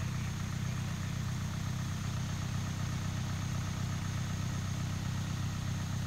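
A 4x4's engine idling steadily, an even low hum with no revving.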